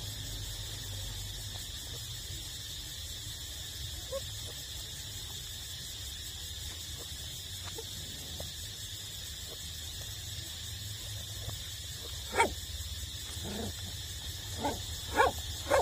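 Puppies giving short yelps. There is one faint yelp about four seconds in, then a quick run of about five near the end, the first of them the loudest.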